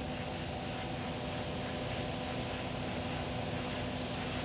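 Steady engine drone: several held tones over a low rumble, unchanging throughout.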